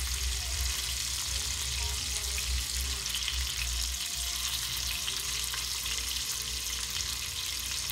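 Ribeye steak's fat edge sizzling in hot oil in a cast iron skillet, a steady crackling hiss, as the fat cap renders.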